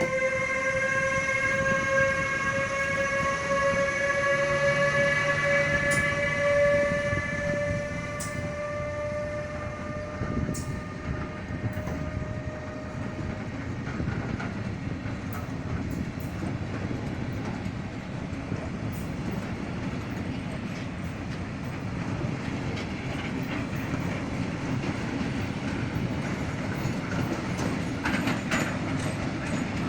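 Train passing: a long, steady horn note, rising slightly in pitch, sounds for about the first dozen seconds and then fades, while the rumble and clatter of the wheels on the rails carry on.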